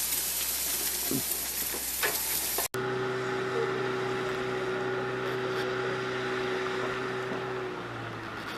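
Food sizzling on a grill for the first few seconds, cut off suddenly; then a boat motor running steadily, its tone shifting slightly near the end.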